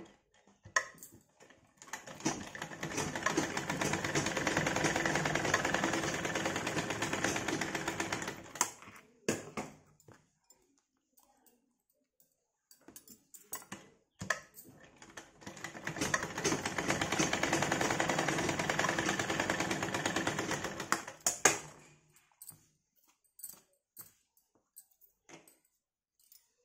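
Domestic sewing machine stitching through cotton fabric at a steady fast pace, in two spells of about six or seven seconds each. Between them it stops for several seconds and there are only small clicks and cloth handling.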